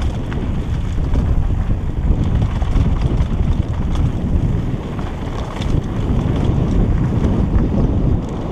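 Wind buffeting a helmet-mounted camera's microphone as a mountain bike descends a gravel track, a steady loud rumble with a few light clicks from the bike over stones.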